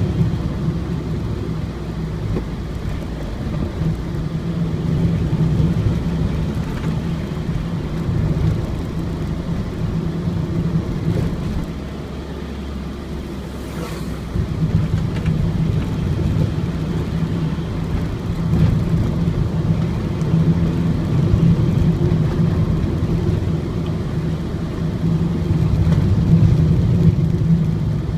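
Ford Transit van's four-cylinder diesel engine running on the move, a steady low drone with tyre and road noise, heard on board. The engine eases off about halfway through, then pulls again.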